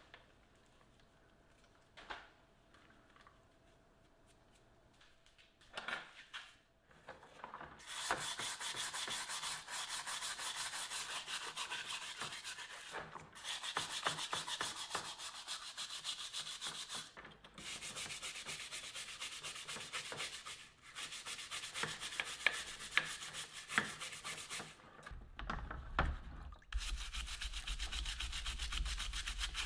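A stiff plastic scrubbing brush scrubbing the plastic housings of an old impact driver in soapy water, in fast back-and-forth strokes. After a few quiet seconds of small handling knocks, the scrubbing runs for several seconds at a time with brief pauses.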